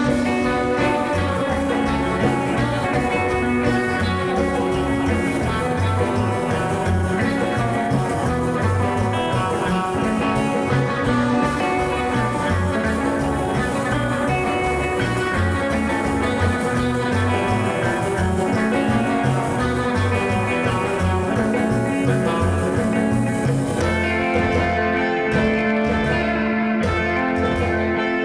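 Live rockabilly band playing: hollow-body electric guitar, upright double bass and drum kit, at a steady driving beat. The bright high end thins out about four seconds before the end.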